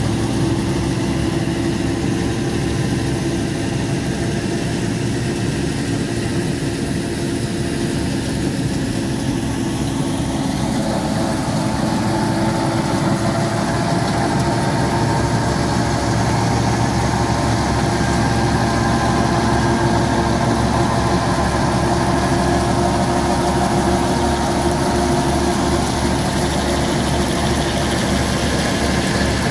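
Tractor engine running steadily while it drives a PTO-powered wheat straw chopper (bhusa machine) that picks up stubble and blows chopped straw into a trailer, the engine and machine humming together. The hum grows a little louder and higher-toned about ten seconds in.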